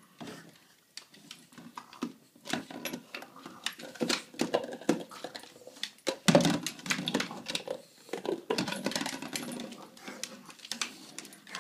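A French bulldog's claws clicking and scrabbling on a hardwood floor as it scurries and turns about, a rapid, irregular patter that is busiest in the middle.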